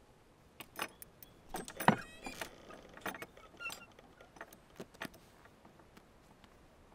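Handling noises: a run of sharp clicks and knocks, loudest about two seconds in, with a short rattle just after it and a faint squeak a little later.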